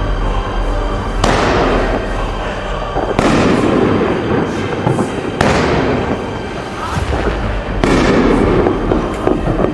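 Multi-shot 2-inch fireworks rack firing shot after shot, about one every two seconds, four times: each shot is a sudden burst of the white glitter mine and willow effect followed by a fading hiss.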